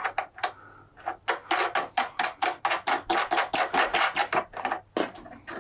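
A fast, even run of sharp mechanical clicks, about six a second for some three seconds, starting a little over a second in, from the windscreen being fastened or adjusted.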